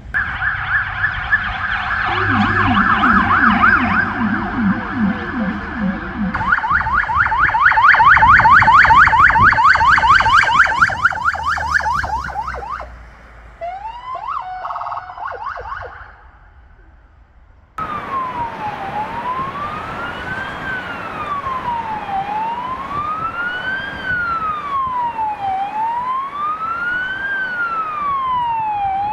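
Emergency-vehicle sirens: first a fast yelp, joined by a second, lower yelp for a few seconds, then a brief different siren. About two-thirds of the way in, the sound changes abruptly to a Polish police car's siren in a slow wail, rising and falling about every two and a half seconds.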